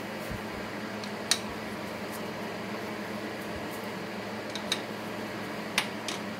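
A few sharp metallic clinks as an adjustable wrench is handled against the lathe's tailstock, over a steady mechanical hum.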